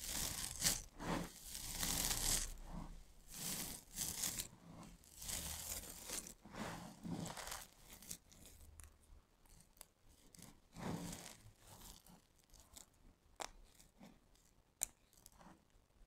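Hands scooping, sifting and crumbling a heap of dry crushed soap chips, with a crisp rustling crunch. It comes in dense bursts through the first half, then thins to quieter scattered crackles and a few sharp little clicks.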